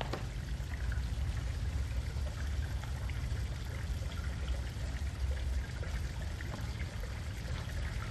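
Water running steadily, with a low rumble underneath.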